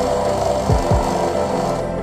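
Homemade mini wood lathe driven by a salvaged water-pump motor running, its wooden blank spinning, with a steady whirring hiss that cuts off near the end. Background music plays underneath.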